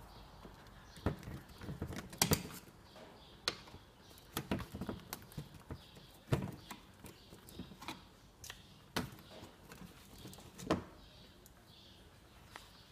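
Irregular plastic clicks and knocks as push-in retaining clips are worked loose from a Nissan Murano's plastic splash shield in the front wheel arch.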